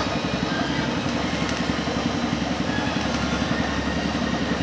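Stick-welding arc crackling as a joint in a sawmill bandsaw blade is welded, over the steady drone of an engine running throughout, which is the loudest sound.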